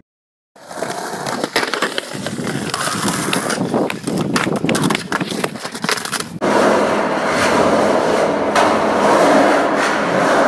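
Skateboard wheels rolling on concrete, with many sharp clacks of the board and trucks hitting the ground and curb. About six seconds in, this gives way to a louder, steady rolling rush.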